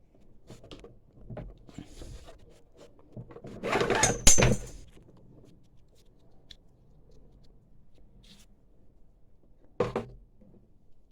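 Clicks and scrapes of lawnmower parts being handled as the gearbox is worked loose, with a louder clatter about four seconds in that ends in a sharp knock, and another short knock near the end.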